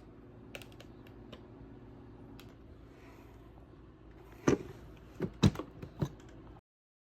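A few sharp clicks and knocks over a faint low hum, the loudest four coming close together in the second half, after which the sound cuts off abruptly. No vacuum motor is running.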